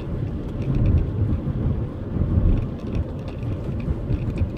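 Diesel car driving along a rough, bumpy lane, heard inside the cabin: a steady low rumble of tyres and engine that swells and dips with the road surface.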